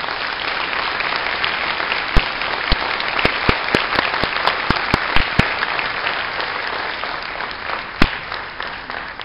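Audience applauding as a band piece ends. A run of loud, sharp claps close by comes from about two to five and a half seconds in, with one more near the end, while the applause eases off.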